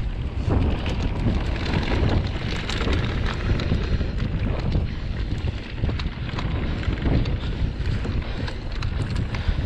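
Mountain bike descending a dry dirt trail: wind buffeting the microphone over the tyres rolling on loose dirt, with frequent small rattles and clicks from the bike.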